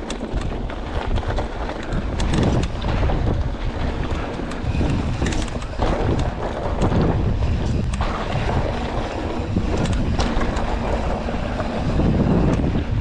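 Mountain bike riding along a dirt trail, with wind buffeting the helmet or chest camera's microphone. Under the steady, bass-heavy rush come many scattered clicks and rattles from the tyres and bike.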